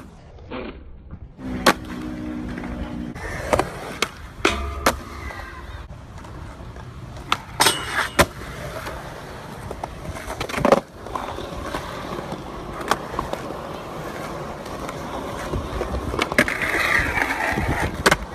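Skateboard wheels rolling on concrete, broken by a dozen or so sharp cracks of tail pops, board clacks and landings, the loudest about two-thirds of the way through.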